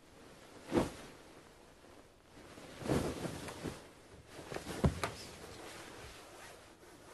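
Duvet and bedding rustling as a person shifts and sits up in bed, in a few short bouts of movement about a second in, around three seconds and around five seconds.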